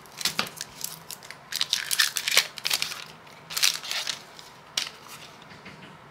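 Foil wrapper of a Pokémon Celebrations booster pack being torn open and crinkled by hand: a run of sharp crackles and crinkles that dies away about five seconds in.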